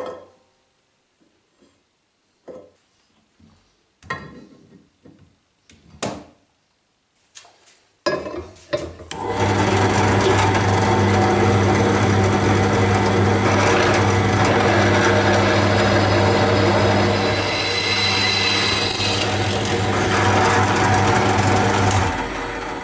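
A few scattered knocks and clicks of a metal part being handled, then a bench drill press starts and runs steadily, its bit drilling a fixing hole in a metal vise jaw with a low motor hum under the cutting noise. The drill stops near the end.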